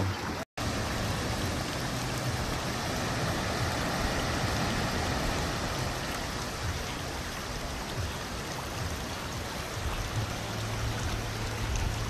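Steady rush of moving water from a shallow stream running across a beach toward the surf, with a brief dropout about half a second in.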